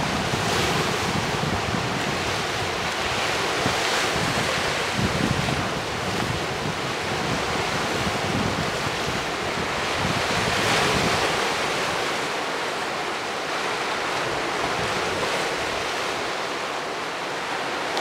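Sea surf breaking and washing over boulders on a rocky shore: a continuous rush of water that swells as each wave comes in, loudest about a third of the way in and again just past the middle.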